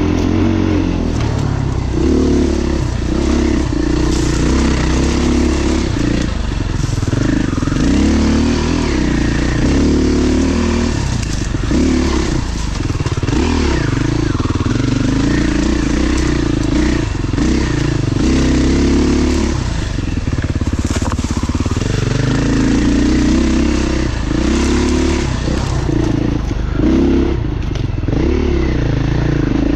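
Beta dirt bike engine running under way, its revs rising and falling, with a few knocks along the way.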